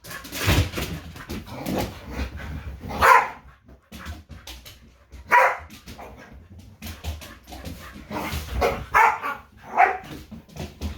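Dogs barking in play: a few short, loud barks, one about three seconds in, one about five seconds in and a cluster of three near the end, with scuffling noise between them.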